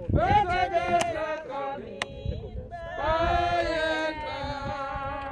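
Church congregation singing a hymn together, voices holding long, sliding notes in two phrases, with two sharp clicks about a second apart early in the phrase.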